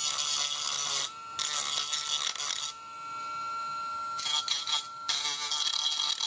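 Dremel rotary tool running with a steady high whine, grinding burrs off an ABS 3D-printed part in several short passes. The grinding noise drops out for about a second and a half in the middle while the motor keeps whining.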